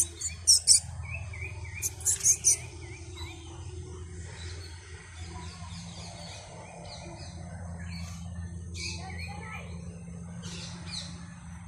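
Sharp, high-pitched animal chirps in quick clusters of three or four, loudest in the first few seconds and fainter again near the end, over a wavering call and a steady low rumble.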